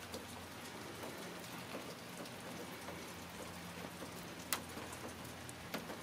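Steady rain falling, with scattered drops ticking close by and one sharper tick partway through; a faint low steady hum runs underneath.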